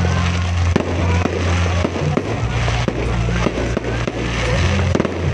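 Aerial fireworks display: shells bursting in rapid, irregular bangs and crackles, one after another with no pause.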